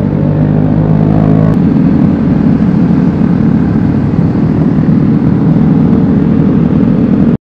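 Vespa Sprint 150 scooter's single-cylinder four-stroke engine running while riding in traffic, with a steady engine note for about the first second and a half, giving way to a rough, loud rumble of wind and road noise on the handlebar-mounted camera.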